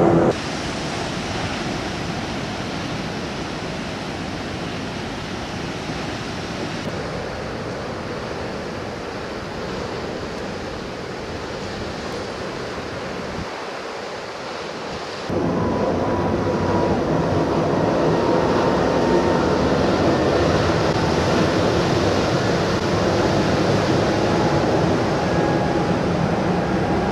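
Ocean surf and wind: a steady rushing noise that grows louder and fuller about fifteen seconds in.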